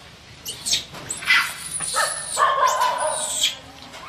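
Baby macaque screaming for its mother: a series of shrill, high-pitched distress screams, with a longer, lower wavering cry about halfway through.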